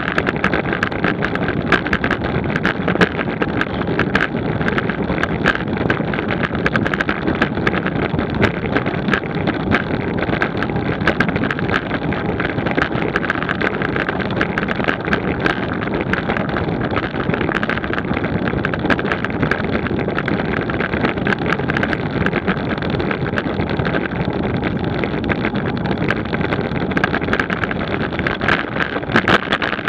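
Wind rushing over the microphone of a bicycle-mounted camera while riding at about 20 mph, mixed with road noise. Many small irregular clicks and rattles run through it.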